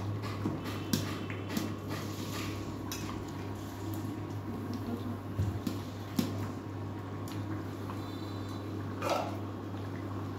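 Metal ladle stirring and scraping a thick, nearly cooked soybean and potato curry in a large metal kadai, with scattered clinks against the pan and the curry squelching as it simmers. A steady low hum runs underneath.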